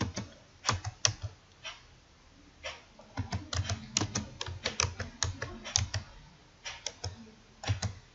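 Typing on a computer keyboard: irregular runs of key clicks, with a pause of about a second near the start and a shorter lull before the end.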